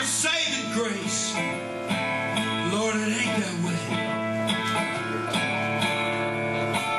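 Acoustic resonator guitar strummed solo in an instrumental passage, with some notes sliding in pitch.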